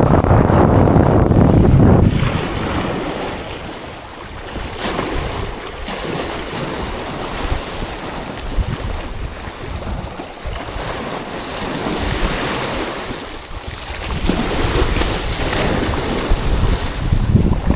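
Wind rumbling on the microphone over the wash of sea waves. The gusts are strongest in the first two seconds and pick up again near the end.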